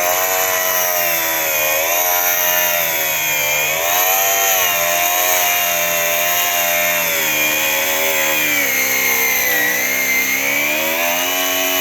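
Electric power tool cutting into a sealed front-load washing machine drum, its motor running continuously, the pitch dipping and recovering several times as the cut loads and frees it.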